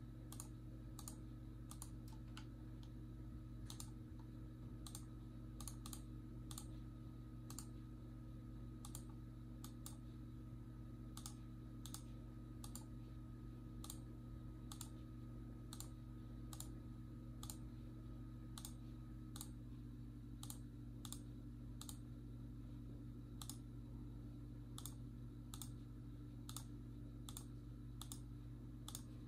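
Computer mouse clicking faintly, about one or two clicks a second and unevenly spaced, over a steady low electrical hum.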